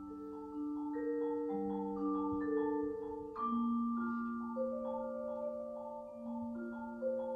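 Solo vibraphone played with mallets: chords and melody notes struck every half second or so, each ringing on long and overlapping the next.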